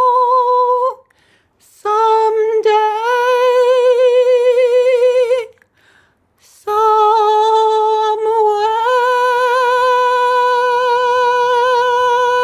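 A woman singing solo a cappella, holding long notes with a wavering vibrato. A note ends about a second in. After a brief breath comes a phrase that steps up slightly in pitch, and after another breath a final long note, stepping up once and then held for several seconds.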